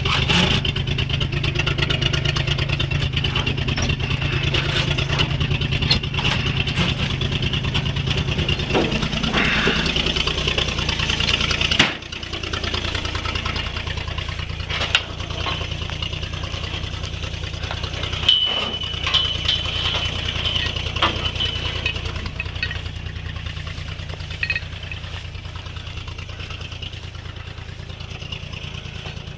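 Old 1942 Chevrolet truck engine idling steadily with an even, low firing beat. About twelve seconds in the level drops suddenly and the engine carries on more quietly, with a few light clanks and knocks.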